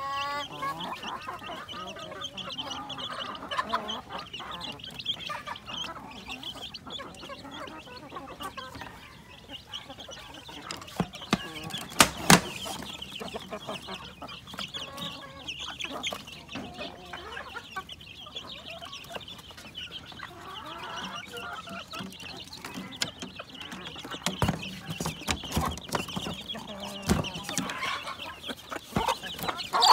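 Native chicken chicks peeping continuously in a dense, high chorus, with a hen clucking now and then. A few sharp knocks about twelve seconds in.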